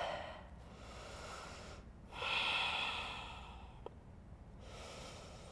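A woman's single heavy breath, lasting about a second and a half from about two seconds in, as she catches her breath after fast cardio yoga work.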